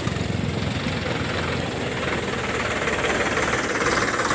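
Diesel tractor engine running close by with a rapid low beat, growing louder toward the end as it draws near.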